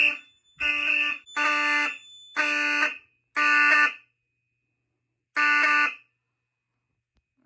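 Fire alarm system sounding in alarm after a smoke detector is tripped with a screwdriver. A buzzy alarm tone comes in pulses about half a second long, roughly one a second, then one more after a pause of about a second and a half, and it stops about six seconds in.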